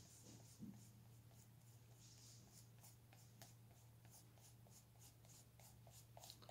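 Faint scratchy rubbing of a sponge-tipped PanPastel applicator worked in short strokes over a stencil on paper, a few strokes a second, over a low steady hum.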